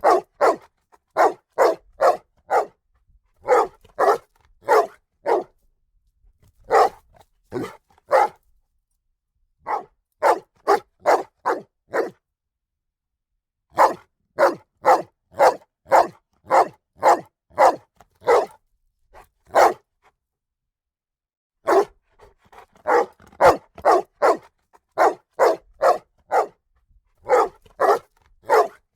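A dog barking repeatedly, in runs of several quick barks about two a second, with short pauses between the runs.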